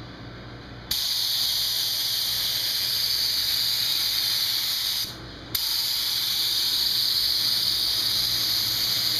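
Gravity-feed spray gun hissing as it atomises high-build primer surfacer with compressed air. It starts abruptly about a second in, stops for half a second about five seconds in, then starts again for a second pass.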